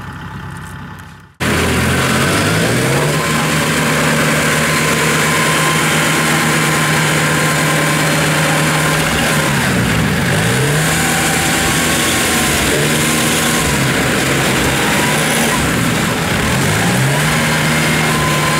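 Diesel engines of a tracked rice-field towing tractor and a combine harvester working hard in deep mud while the tractor tows the bogged-down combine. The engines run loud and steady after a cut about a second and a half in. Their pitch sags briefly twice, around the middle and near the end, then picks back up.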